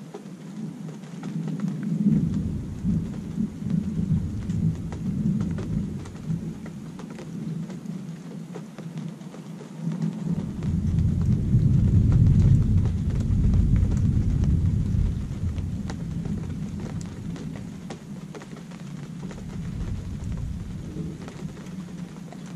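Thunderstorm: steady rain pattering, with two long low rolls of thunder, the first about two seconds in and a second, louder one about ten seconds in that slowly fades.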